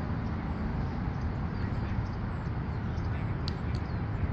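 Outdoor ambience: a steady low rumble with faint distant voices, and a couple of faint clicks near the end.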